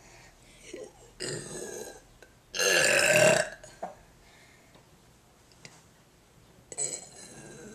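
A person burping in a burping contest: three loud burps, the longest and loudest about three seconds in, with another starting near the end.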